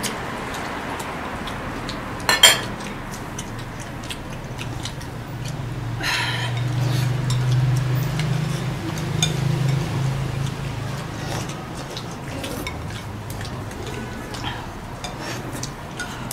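Chopsticks and spoons clicking and clinking against porcelain bowls while people eat, with one louder clink a little over two seconds in. A low hum swells and fades in the middle.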